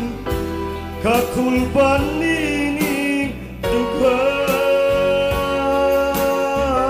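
A man singing a slow Cebuano ballad over instrumental backing. He sings one phrase, then holds a long, wavering note from about four seconds in.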